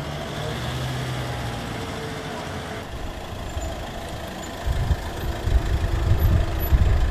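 Low outdoor street rumble, like a vehicle engine running nearby, which turns louder and more uneven about two-thirds of the way through.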